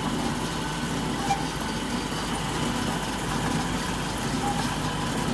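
Peanut flour milling machine running steadily, an even mechanical hum and rush with a faint high whine.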